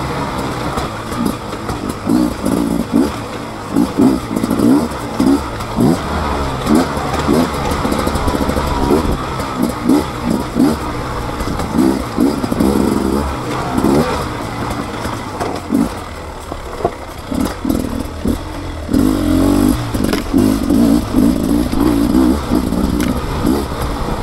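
Beta 300 RR's single-cylinder two-stroke engine revving up and down as the throttle is rolled on and off while riding, in repeated short bursts. A longer, heavier pull comes near the end.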